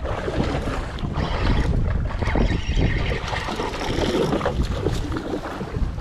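Wind buffeting the microphone aboard a boat at sea, with water noise beneath: a steady, rough rush heaviest in the low end.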